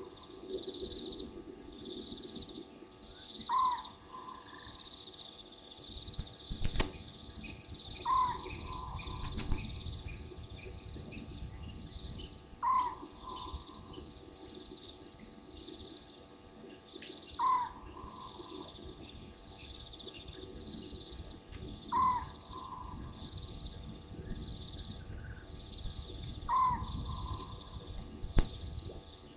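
An animal's short call, repeated evenly about every four and a half seconds, six times in all, over a steady high-pitched pulsing chirr.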